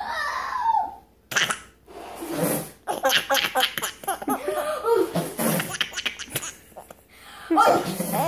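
Toddler laughing in repeated bursts.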